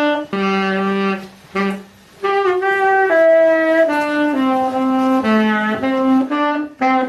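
Saxophone playing a slow melody of held notes, pausing twice briefly in the first two seconds.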